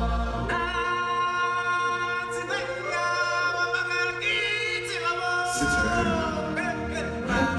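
Music with a singing voice holding long notes that glide from one pitch to the next, in a choir-like, chant-like style.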